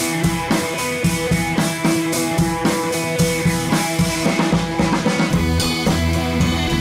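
Background music with a steady drum beat over held instrumental tones.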